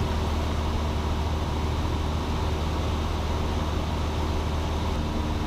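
Cessna 172's piston engine and propeller droning steadily in level cruise, a constant low hum under a wash of air and engine noise.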